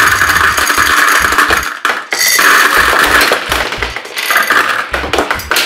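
Gumballs pouring from a jar into the clear globe of a toy gumball machine: a dense, fast clatter of many small hard clicks as the candy balls hit the globe and each other, easing briefly about two seconds in.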